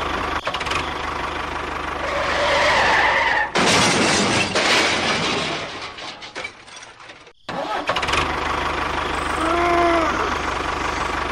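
An engine running steadily with a fast, even pulse. About three and a half seconds in it gives way to a few seconds of a different hissy noise that fades out, and the engine sound comes back about eight seconds in.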